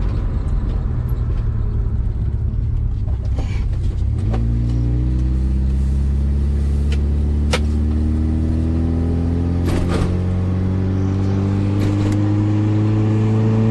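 Car engine and road rumble from inside a moving car; about four seconds in the engine note comes up and rises slowly and steadily as the car accelerates.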